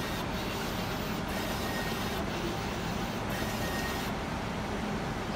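Picnic automated pizza-assembly machine running with a steady mechanical noise as it dispenses diced meat toppings onto a pizza on its conveyor.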